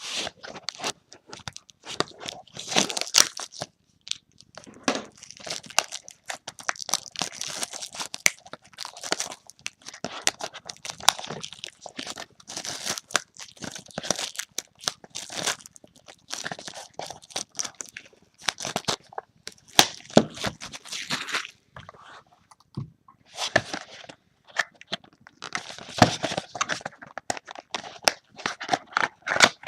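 Sealed trading-card box being unwrapped and opened by hand: plastic wrap tearing and crinkling, with cardboard rubbing and clicking in an irregular run of rustles.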